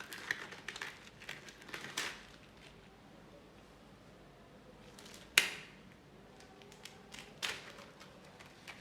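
Equipment being tidied away by hand: light clicks and rustling, then a sharp knock about five seconds in and a smaller one about two seconds later.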